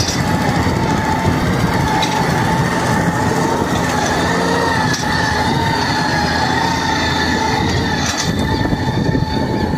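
Valmet tractor's diesel engine running steadily under load, with a high whine that wavers a little in pitch and a few light clicks.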